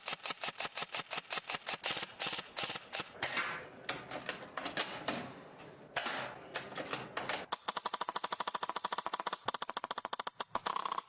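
Airsoft gun firing a quick string of shots, about six a second, then after a short break a much faster automatic burst.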